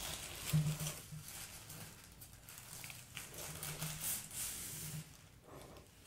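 Faint rustling and crinkling of a frosted plastic sleeve as a USB hub is slid out of it by hand, with small irregular crackles throughout.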